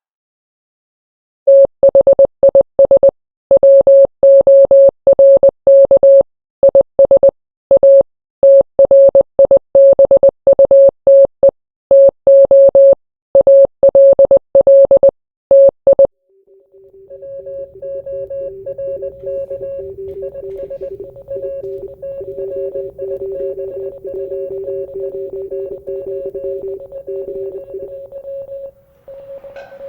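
Morse code: a single steady beep keyed on and off in dots and dashes for about fifteen seconds, spelling out a message. It then gives way to a quieter held drone of two steady tones, one slightly lower than the other.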